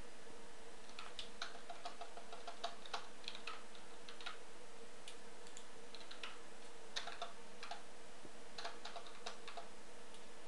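Computer keyboard keystrokes and clicks in short irregular clusters as text is deleted and retyped, over a faint steady hum.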